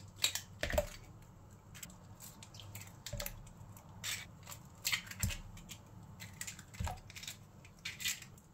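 Eggs being cracked one after another on the rim of a mixing bowl: a scattered series of short, sharp shell cracks and clicks.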